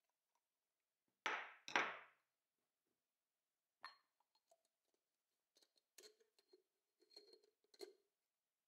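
Two short knocks about a second in, then a string of light clicks and glass clinks with a thin ring as a glass catch jar is fitted and screwed onto the Comandante hand grinder's wooden body.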